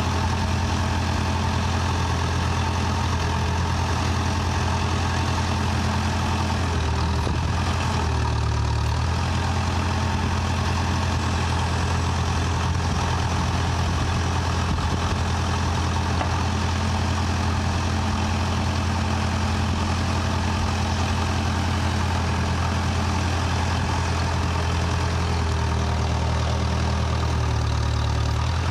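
Backhoe's diesel engine running steadily with a low, even hum, its note shifting briefly about a quarter of the way in and again near the end.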